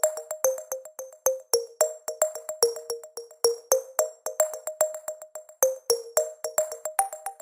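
Electronic background music: quick, short synthesizer notes on a few repeating pitches, several a second.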